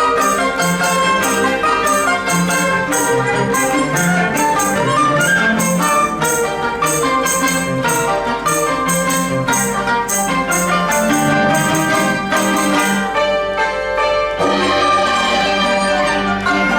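Chinese chamber sextet of erhu, dizi, pipa, yangqin, zhongruan and cello playing a busy passage of quick, closely spaced plucked and struck notes over moving lower lines. The texture thins briefly about thirteen seconds in, then comes back fuller and more sustained.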